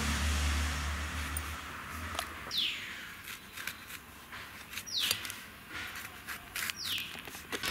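A bird calling three times, each call a quick whistle sweeping downward in pitch, a little over two seconds apart. Scattered light clicks are heard, along with a low hum that fades out about two seconds in.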